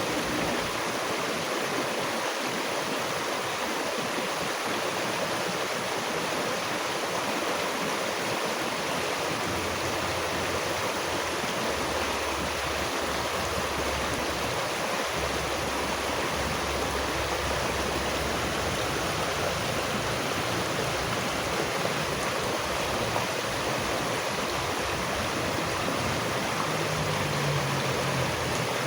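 Flowing stream water, a steady, even rushing sound without breaks.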